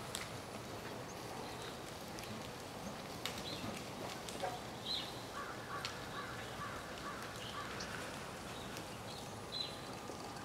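Faint outdoor ambience with a few short high chirps scattered through it and, midway, a run of about seven quick repeated calls; these are animal calls, not a bull elk's bugle.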